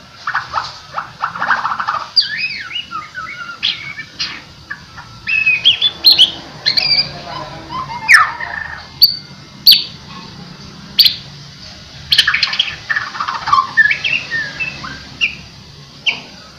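White-rumped shama (murai batu) singing a varied song of quick sliding whistles mixed with sharp clicking notes, in short bursts with brief pauses.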